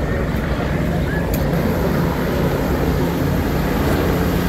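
Helicopters flying by overhead: a steady, dense rumbling drone of rotors and engines.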